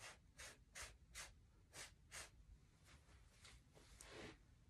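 Faint, quick puffs of breath blown through a drinking straw to push wet acrylic paint across a canvas in a Dutch pour. There are about a dozen short breathy puffs, two or three a second, stronger at first and softer in the second half.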